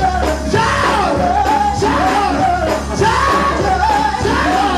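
Gospel song: a lead singer's voice over the band's accompaniment.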